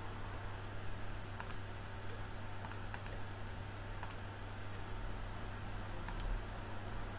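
Scattered single clicks of computer controls being operated, about five in all, over a steady low electrical hum.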